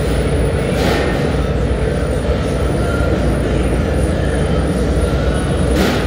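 Industrial belt-type annealing furnace running: a loud, steady mechanical rumble with a hiss over it. A brief hiss rises out of the noise about a second in and again near the end.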